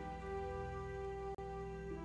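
Background music of slow, long-held notes that shift in pitch every second or so over a steady low layer, with a split-second dropout about one and a half seconds in.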